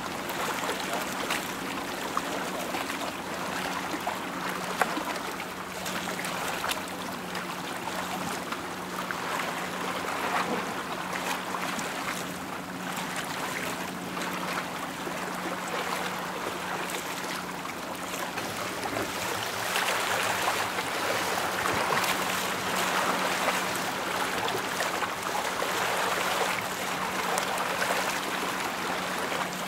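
River water washing and lapping along the bank, a steady rushing noise that grows a little louder about two-thirds of the way through, over a steady low hum.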